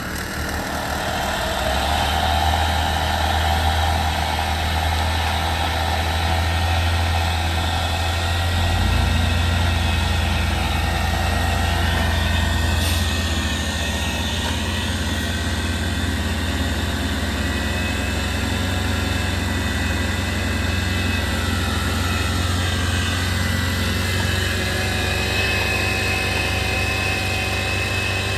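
Engine running steadily with a low hum; its low note shifts about nine seconds in, then runs on evenly.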